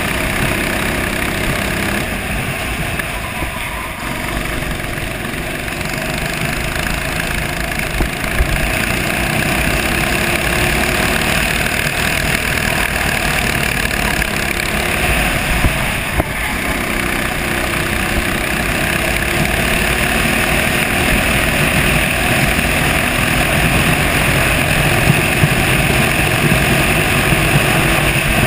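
Racing kart engine running hard through a lap, heard from a camera mounted on the kart; the engine eases slightly about four seconds in and builds again afterwards.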